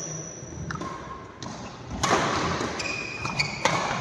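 Badminton being played on a court: sharp racket-on-shuttlecock hits and thuds, with short high squeaks. Two sharp cracks come close together near the end.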